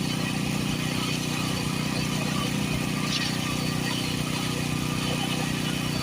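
Concrete pump's engine running steadily at a constant speed.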